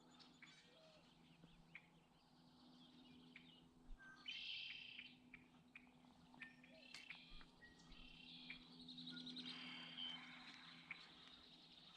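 Faint bird chirps and trills with a few soft clicks.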